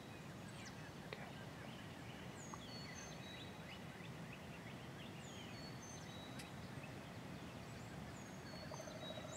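Quiet woodland sound with songbirds chirping repeatedly, a short high call every couple of seconds. Near the end comes a faint wild turkey gobble.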